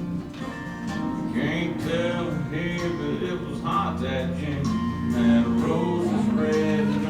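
Background music: a song with acoustic guitar accompanying a singing voice.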